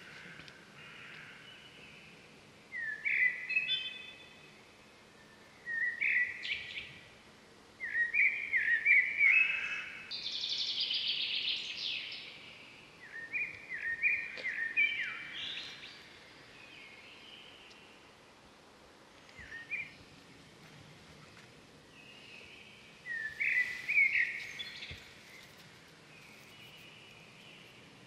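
Wild birds singing in short bursts of quick chirping notes, repeated every few seconds, with one longer, buzzier phrase near the middle, over a faint steady open-air hiss.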